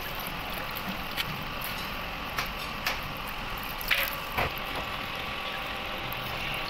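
Water splashing and dripping as a hand washes an ammonia compressor's cast oil filter housing in a tub of water: several short splashes, the loudest about four seconds in, over a steady hiss.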